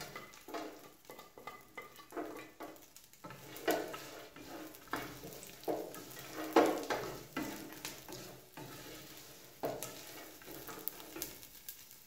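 Wooden spoon stirring and scraping dried shrimp around an enamel pot in irregular strokes, over a faint sizzle of the shrimp frying in a little oil.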